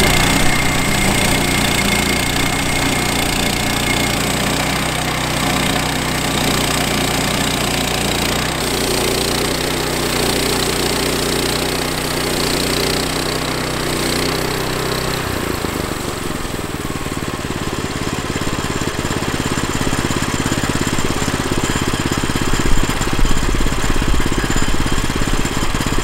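Woodland Mills HM122 portable bandsaw mill running, its gasoline engine driving the band blade through a log as a slab is sawn off. A steady engine note whose even hum breaks off about fifteen seconds in, leaving a rougher, noisier sound.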